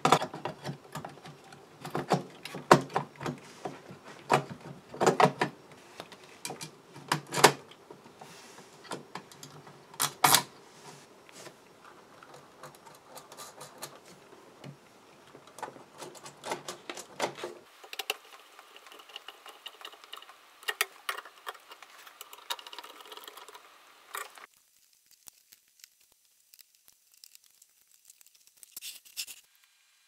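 Clatter of hands fitting a banana-socket bracket to an amplifier's metal chassis: irregular sharp clicks and knocks, thickest in the first half, then fainter clicks and rubbing.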